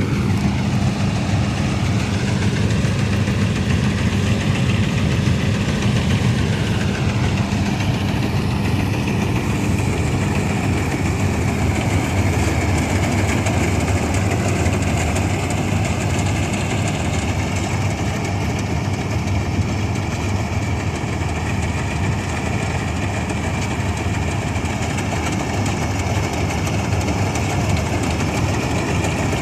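1965 Ködel & Böhm Köla Combi Special combine harvester running steadily, its engine and machinery giving a constant hum, with a faint whine that dips and rises in the first few seconds.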